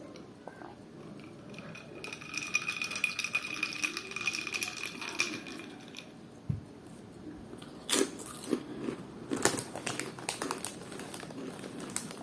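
A steady high whine holds for about four seconds. Then come irregular crisp crackling clicks from a bag of crunchy bacon-flavoured snacks being handled.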